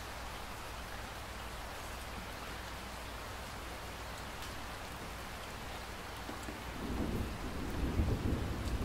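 Steady rain with scattered drop taps. About seven seconds in, a low rumble of thunder builds up and becomes the loudest sound.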